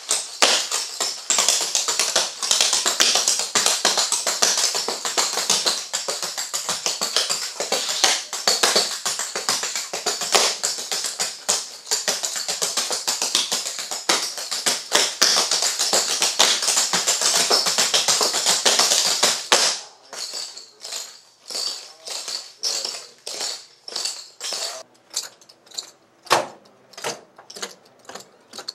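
Clogging taps struck on a concrete floor by three dancers: a dense, rapid, jingling rattle of taps. At about two-thirds of the way through it thins to sparser, separate strikes.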